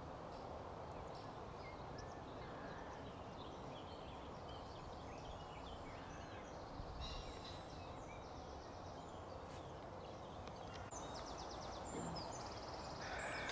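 Outdoor background ambience: a steady low hum of background noise with small birds singing and chirping throughout, including a couple of fast trills in the second half.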